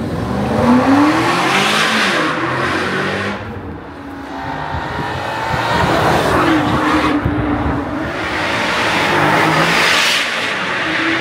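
Range Rover Sport SV's twin-turbo V8 accelerating hard past in several loud flybys through a Quicksilver aftermarket exhaust, its valves held open through the whole rev range. The engine note climbs in pitch on each pull, echoing off the walls of an underpass.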